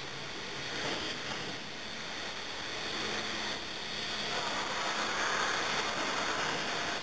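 Rotary car dumper unloading coal from a train: a steady rushing noise that grows somewhat louder about five seconds in.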